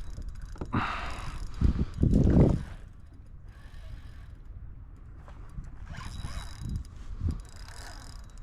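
Fishing reel ratcheting and clicking as a redfish is played on the line. There is a louder burst of noise about one to two and a half seconds in.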